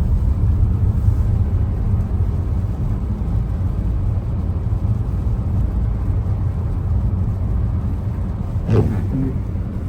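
Steady low rumble of a car driving on a highway: road and engine noise of the moving car. There is one brief higher sound near the end.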